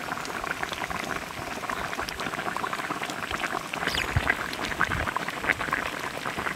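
Spicy fish stew boiling in a large wok, the broth bubbling steadily with a dense crackle of small pops.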